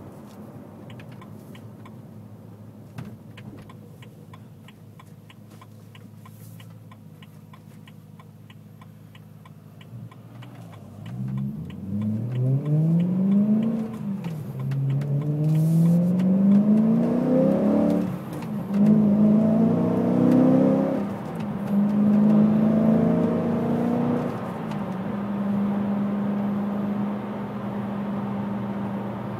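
BMW E92 M3's 4.0-litre V8 with a Fabspeed X-pipe, high-flow catalytic converters and Agency Power exhaust, heard from inside the cabin. It runs quietly at first with a fast, light ticking, then about eleven seconds in it revs hard, rising in pitch through three upshifts, and settles into a steady drone at cruise near the end.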